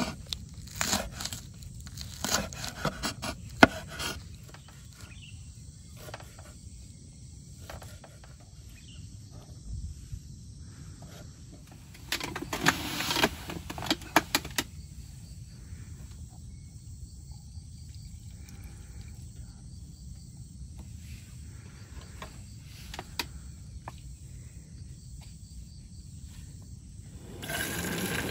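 Outdoor ambience with insects chirping steadily in the background over a low, even noise. Scattered sharp clicks and knocks come in the first few seconds and again around the middle. A louder steady hiss sets in near the end.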